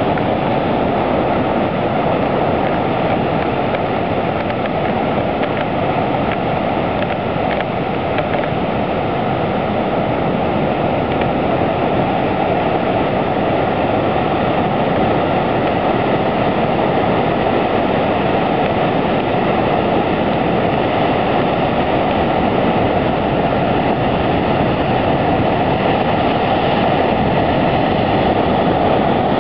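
Heavy ocean surf breaking and churning over a rocky shore: a loud, steady roar of whitewater with no let-up.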